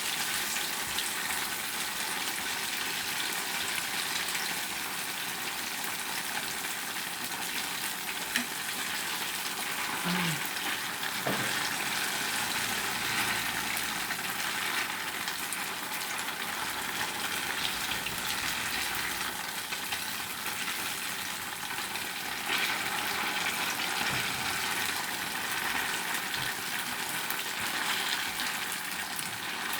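Strips of tofu skin deep-frying in hot oil: a steady sizzle, with one sharp tick about eight seconds in.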